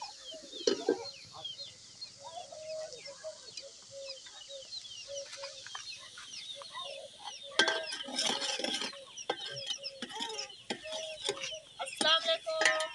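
Domestic chickens clucking in short repeated calls, with small birds chirping high in the background. Louder bursts of calling come about eight seconds in and again near the end.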